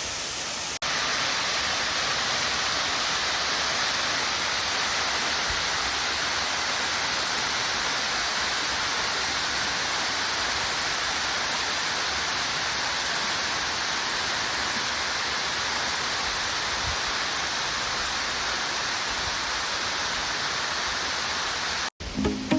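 Waterfall pouring in a steady, dense rush of water noise. It jumps louder about a second in, then holds even, and cuts out briefly near the end.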